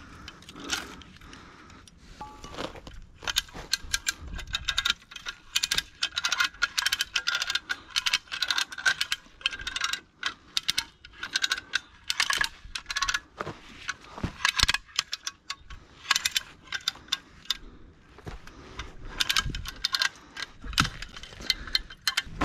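Steel rigging hardware clinking and rattling: carabiners, a pulley block and wire rope being handled and set. A dense run of sharp metallic clicks starts about three seconds in, with a short lull near the end.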